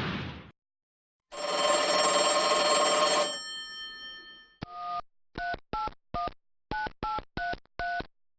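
A burst of hiss cuts off just after the start. Then a telephone bell rings once for about two seconds and fades away. After a short pause come eight short touch-tone keypad beeps, each two notes at once, in an uneven dialing rhythm.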